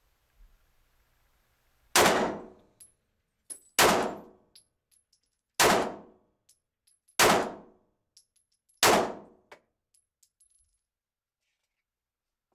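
Five shots from a 9mm Glock 19 pistol, fired at an even pace about a second and a half to two seconds apart. Each shot has a short echoing tail off the concrete walls of an indoor range.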